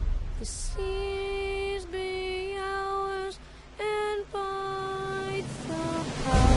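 Background music: a voice singing a slow melody in long held notes, with short breaks between phrases.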